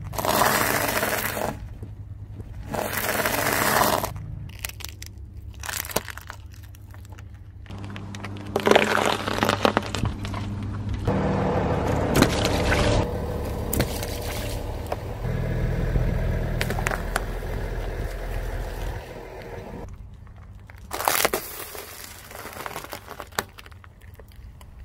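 A car tyre rolling slowly over small objects and crushing them: pretzel sticks snapping at the start, a juice carton squashed around the middle, and popcorn kernels crunching near the end. There are repeated crunches and sharp cracks, and the car's low rumble runs underneath for several seconds in the middle.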